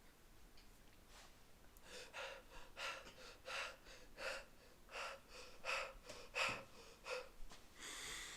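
A person breathing hard in a run of about nine short, evenly spaced gasps, starting about two seconds in.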